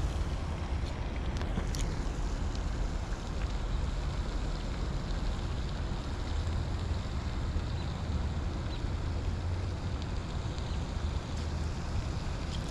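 Steady low rumbling noise of wind buffeting the microphone, with a couple of faint ticks near the start.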